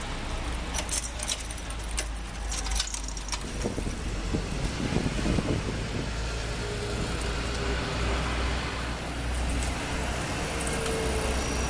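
Street sound with a car passing and a steady low rumble of traffic. Light clicks and rattles come about one to three seconds in.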